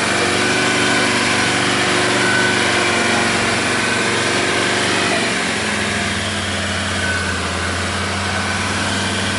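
Vehicle engine running steadily during a tow-rope recovery of a pickup stuck in mud, its note changing about halfway through.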